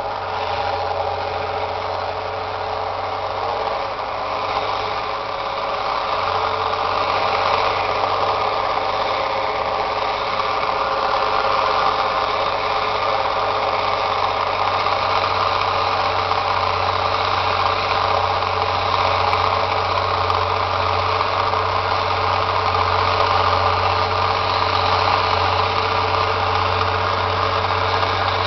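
International Harvester 1486 tractor's turbocharged six-cylinder diesel engine running steadily under load while pulling a chisel plow, growing gradually louder as the tractor comes closer.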